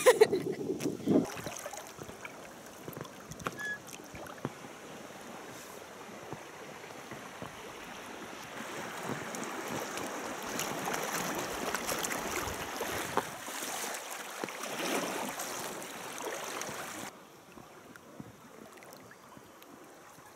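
River water rushing past a drifting boat over a rippled stretch of river. The rush swells through the middle and drops off suddenly near the end, leaving a fainter wash of water.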